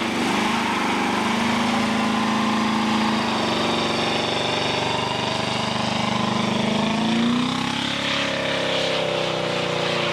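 1967 Pontiac GTO's V8 engine running steadily, its speed dipping a little midway and picking up again about seven seconds in.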